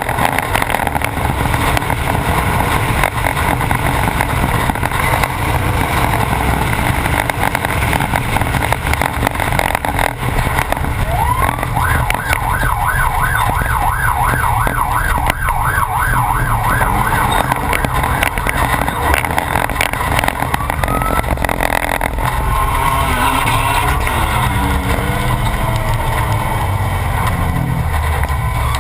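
Off-road race truck running hard over rough ground, its engine and chassis noise loud and steady. About twelve seconds in, a siren warbles quickly for around five seconds, the kind desert racers sound to ask to pass.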